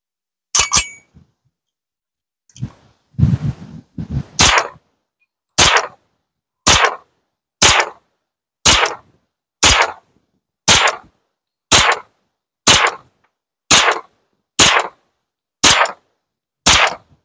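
Kalashnikov USA KR9 9mm direct-blowback carbine fired semi-automatically: about a dozen sharp shots, evenly spaced roughly one per second, starting about four seconds in. Before them come a couple of sharp clicks and a brief rustle.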